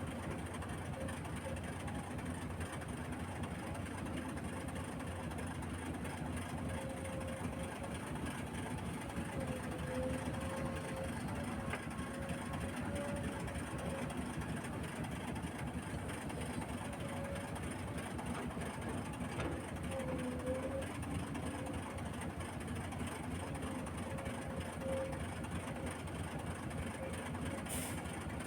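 Excavator running steadily, with a faint whine that wavers in pitch over the engine noise: a sound the owner finds odd and abnormal for the machine.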